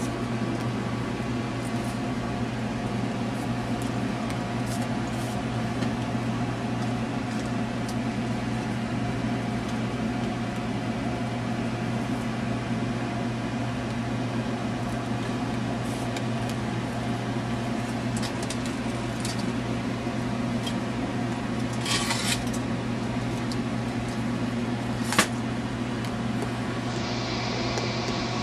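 Steady low machine hum, with scattered light clicks, a brief rustle about 22 seconds in and one sharp tap about 25 seconds in.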